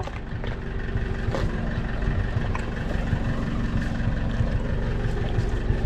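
A steady low hum and rumble with a few faint clicks.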